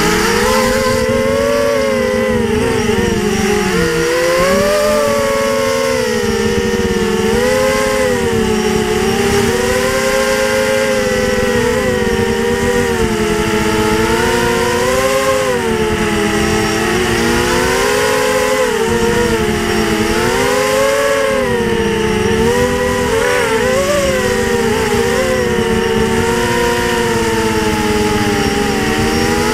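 FPV quadcopter's electric motors and propellers whining, heard close from the drone's own camera. Several close pitches drift up and down together as the throttle changes through the flight.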